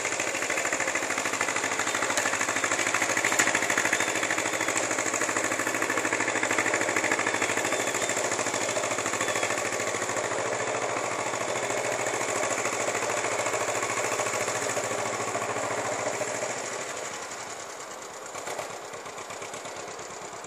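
A John Deere L tractor's small two-cylinder engine running steadily at work, a quick, even chugging. It drops noticeably quieter near the end.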